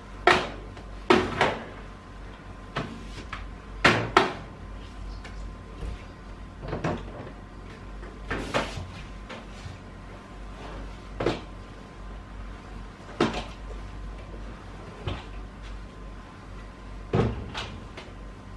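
Irregular knocks and bumps of housework on a timber floor: a flat mop head tapping against furniture and a storage ottoman being lifted and set down. There are about a dozen sharp knocks in all, some in quick pairs, over a faint steady low hum.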